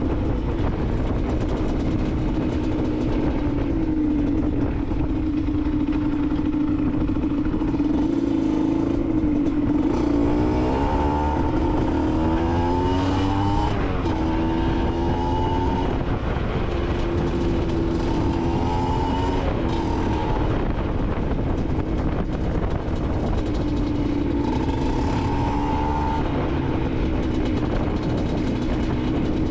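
Aprilia SX 125's single-cylinder two-stroke engine running through an Arrow aftermarket exhaust, held steady at first, then revved up and down several times from about a third of the way in, its note rising and falling.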